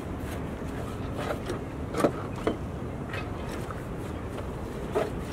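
Hand scraper working stripper-softened paint off a wooden boat's deck: a few short, sharp scrapes, the loudest about two seconds in, over a steady low background rumble.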